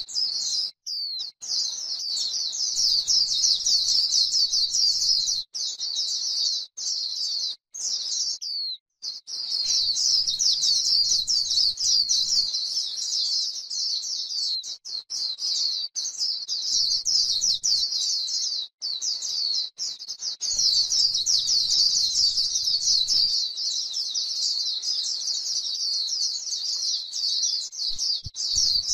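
White-eye singing a long, rapid, high-pitched twittering warble, near-continuous with brief breaks about a second in and around eight to nine seconds in.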